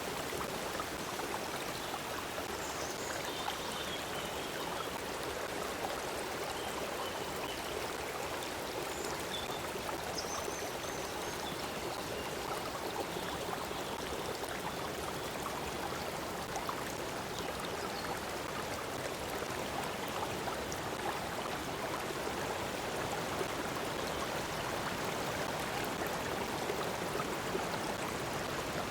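A stream of water flowing steadily, an even rushing with no pauses.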